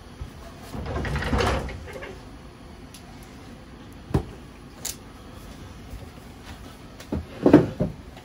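Kitchen handling noises: a short rummaging clatter about a second in, then a sharp knock at about four seconds as an aluminium drink can is set down on the stainless steel counter, and a louder cluster of knocks and clunks near the end.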